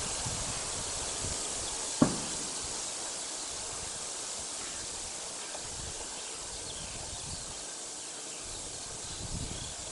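Outdoor ambience: a steady high hiss with wind gusting on the microphone, and a single sharp click about two seconds in.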